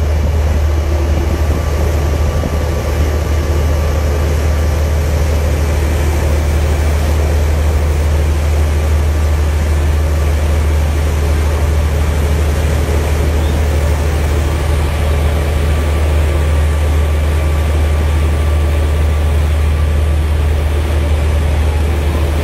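Steady, loud, low engine drone that holds unchanged throughout.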